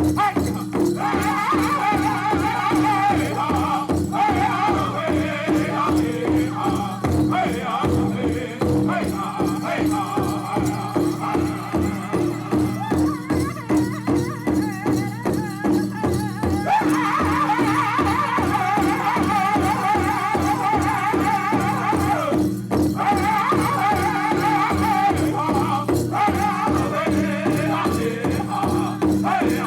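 A powwow drum group sings a contest song in unison over a big powwow drum struck in a steady, even beat. The voices grow louder about halfway through.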